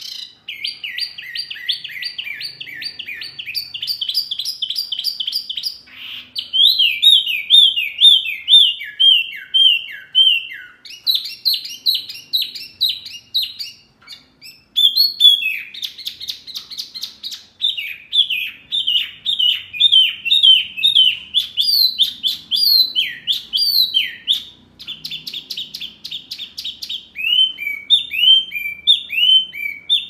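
Buff-breasted babbler (wambi mini) singing very noisily: fast runs of repeated down-slurred whistled notes and trills, in phrases with short breaks.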